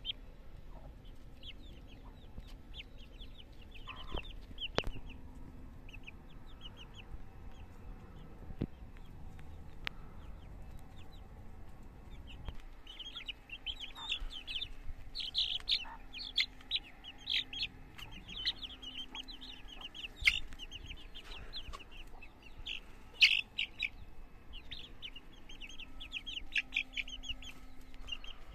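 Young Amrock chicks peeping while they feed: short, high chirps, sparse at first and coming thick and fast from about halfway. A few sharp taps stand out among them, the loudest two in the second half.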